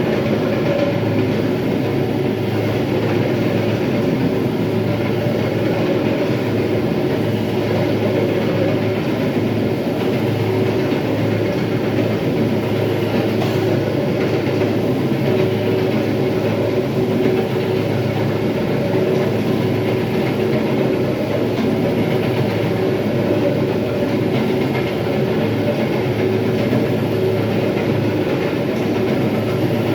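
Electric terrazzo grinder running steadily, its grinding stones rumbling and scraping over the floor with a constant low motor hum underneath.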